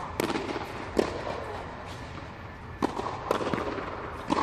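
Tennis balls cracking off rackets and bouncing on the court, about half a dozen sharp pops in a few seconds, starting with a serve, each echoing under an inflatable air-dome roof.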